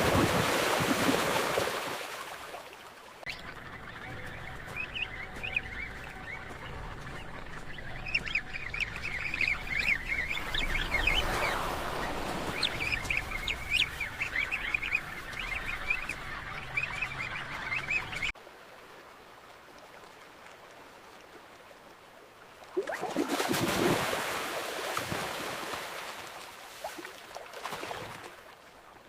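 A rush of water, then many penguins calling over one another in short honking squawks over a steady wash of water for about fifteen seconds, stopping abruptly. A wave then swells and washes in near the end.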